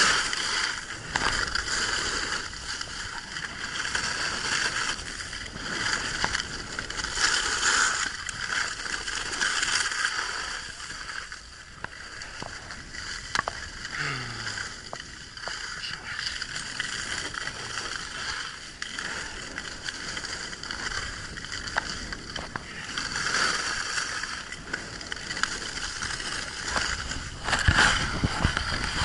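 Skis scraping and hissing over packed, groomed snow on a downhill run, the sound swelling and fading with each turn.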